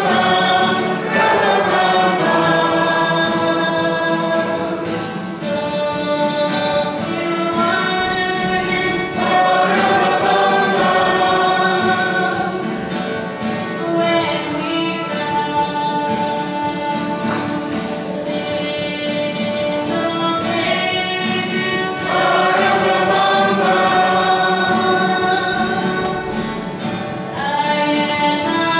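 A Christmas carol sung by several voices with a woman's voice leading, accompanied by acoustic guitar and violin, in long held phrases.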